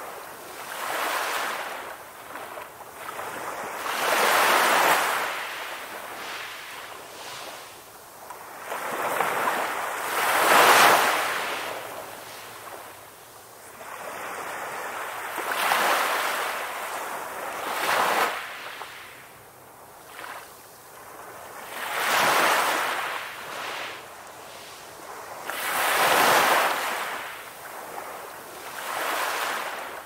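Ocean surf: waves breaking and washing in one after another, each surge of rushing water swelling and fading every four to six seconds.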